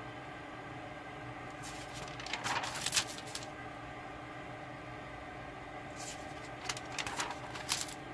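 Paper pages of a spiral-bound notebook being turned by hand, twice: two short bursts of rustling and crinkling paper, the first about two seconds in and the second near the end.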